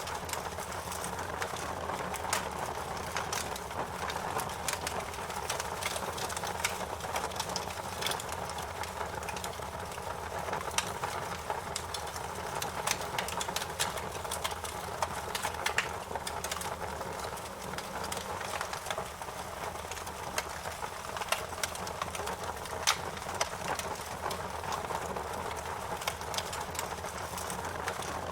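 Wood fire crackling: a steady hiss of flames with frequent, irregular sharp pops and snaps.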